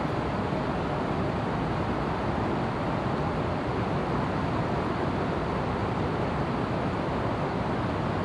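Steady rush of a fast-flowing river running over rocks, an even noise without breaks.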